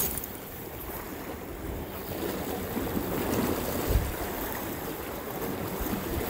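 Sea waves washing against the rocks, with wind rumbling on the microphone and a short low thump about four seconds in.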